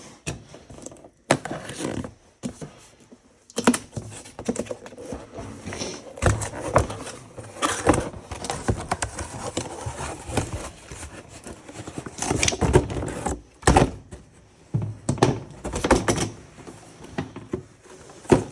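Box of a DeWalt 20-volt light being opened and its packaging and the light handled: irregular rustling and scraping broken by knocks, clicks and thunks, with short pauses.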